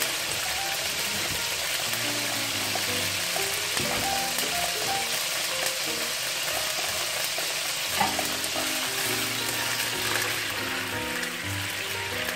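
Cumin seeds and ginger paste sizzling steadily in hot oil with a little added water in a nonstick frying pan, with soft background music under it. A silicone spatula starts stirring the pan near the end.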